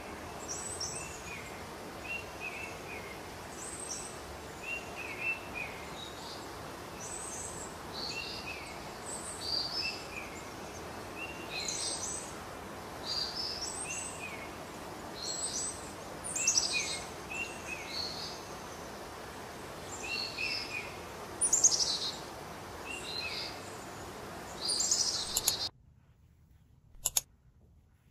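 Small birds chirping and calling over and over, short repeated notes, over a steady background noise. Near the end the sound cuts off suddenly to near silence, with one brief faint rustle.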